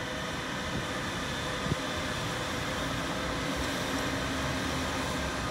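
Sydney Trains double-deck electric suburban train passing at speed: a steady rushing rail noise, with a faint low hum coming in about halfway through. A single sharp click sounds a little under two seconds in.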